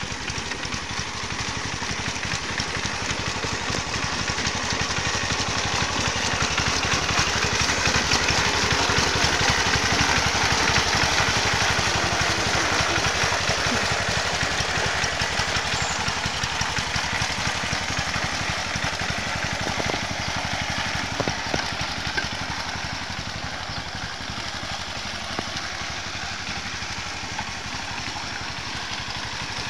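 Tractor engine running steadily while smoothing a ploughed rice paddy, its firing an even, rapid pulse. It grows louder toward the middle and then eases off.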